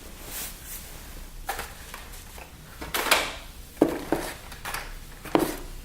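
Packaged Hot Wheels die-cast cars being handled one after another: a few short clicks and rustles of their plastic blisters and card backings.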